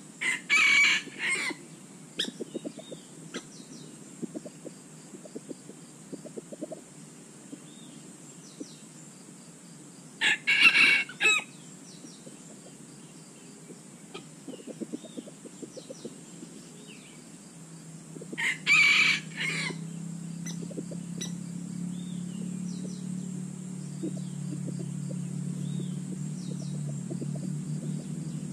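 Rooster crowing three times, each crow short, about a second, spaced about nine seconds apart, with light rustling in dry leaf litter between crows. A low steady hum comes in during the last third.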